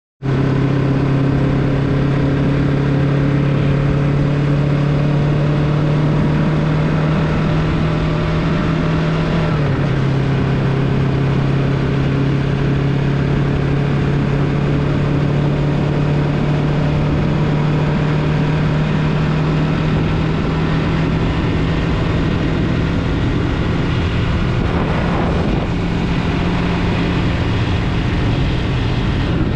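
Yamaha MT-03 motorcycle engine running at a steady speed while riding, with wind and tyre noise, and a brief dip in engine pitch about ten seconds in.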